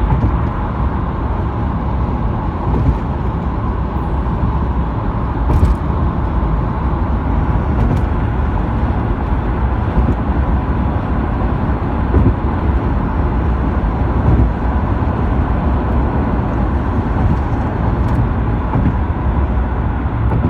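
Steady road noise of a car driving on a highway: a constant low rumble of tyres and engine, with a couple of faint clicks.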